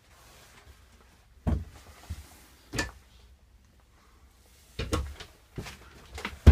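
Wooden cabinet door with a metal handle in a travel trailer being handled, opened and shut: a string of short clicks and knocks from the latch and door, the loudest near the end.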